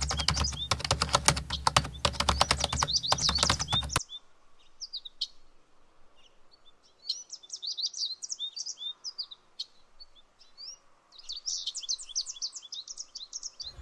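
Small birds chirping and twittering in quick high chirps. For the first four seconds the chirps are loud and dense over rapid sharp clicks and a low rumble; this cuts off suddenly, and quieter flurries of chirps follow.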